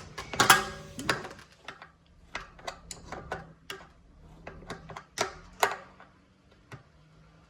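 Adjustable (crescent) wrench tightening the kickstand mounting bolt on an electric bike: a series of irregular metal clicks and knocks as the wrench is fitted and turned on the nut, the loudest about half a second in.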